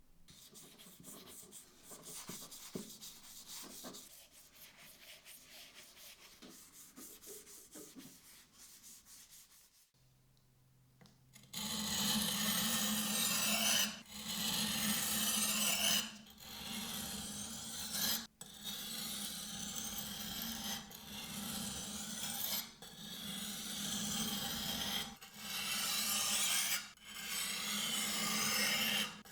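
Hand abrasive work on the restored knife: a softer stretch of light rubbing, then, after a short pause, loud rasping strokes of about two seconds each with brief breaks between them.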